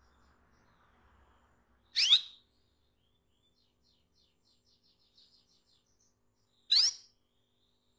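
Female canary giving two loud, short calls, each sweeping upward, about five seconds apart, with a faint run of soft quick chirps between them. These are the calls a hen canary uses to draw a male.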